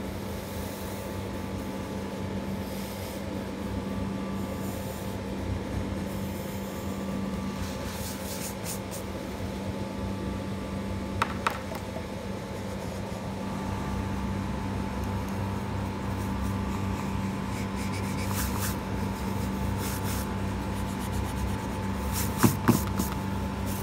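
A steady low hum with a steady higher tone above it, like a fan or air conditioner running, with brief scratchy strokes scattered through it. There are two sharp clicks about halfway and a few more clicks near the end.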